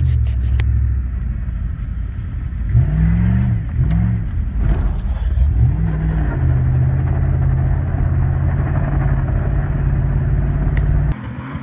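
Dodge Durango's engine revving up and down a few times, then held at steady high revs for about five seconds before cutting off abruptly near the end.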